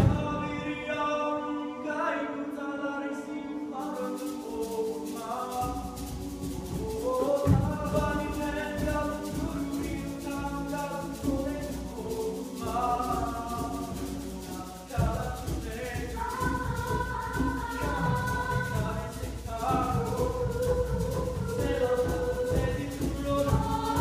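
A male soloist singing into a microphone, with piano accompaniment and a choir behind him. The accompaniment fills out in the bass past the middle.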